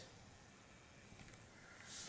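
Near silence: room tone, with a brief soft hiss near the end.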